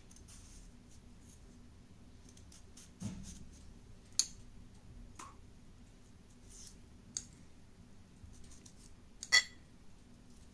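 Sparse clicks and knocks of kitchen work: potato pieces and a knife being handled and set out on a tray. There is a dull thump about three seconds in, and the sharpest, loudest click comes near the end.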